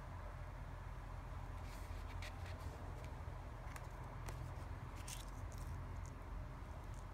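A small spiral-bound memo book being handled and its card cover flipped open: a few short, light paper rustles and ticks, scattered through the middle seconds, over a steady low hum.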